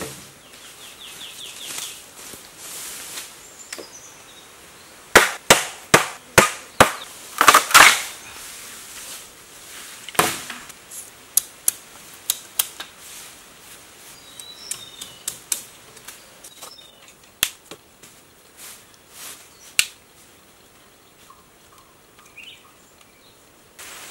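Machete chopping bamboo: a quick run of about seven sharp cracking strikes about five to eight seconds in, then scattered lighter knocks.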